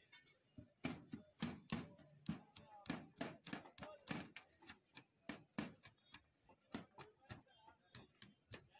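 A knife blade clacking against a steel tray as grilled meat pieces are cut off skewers: irregular sharp strikes, about three a second.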